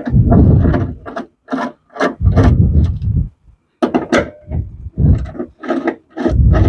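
Ratchet wrench being worked back and forth on the bolts of a car's front-trunk latch, giving repeated short bursts of rapid clicking, about two a second with brief pauses.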